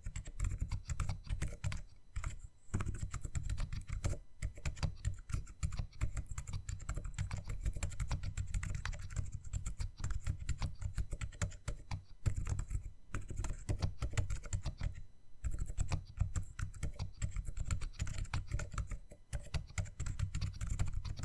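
Fast, continuous typing on a self-built low-profile mechanical keyboard with Kailh Choc V2 silent linear switches and DSA keycaps, in a plateless 3D-printed case on a foam mount. The keystrokes come densely and irregularly, with a few short pauses, and their sound sits mostly low and deep.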